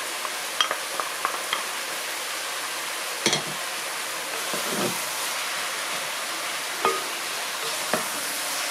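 Rice, ground beef and diced vegetables sizzling steadily in a pot on the stove, with a few light clicks as diced zucchini is tipped in, a sharper knock about three seconds in, and a wooden spatula stirring and knocking near the end.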